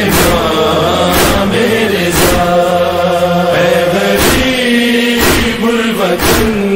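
Devotional chant: a solo voice singing long, wavering held notes over a beat about once a second.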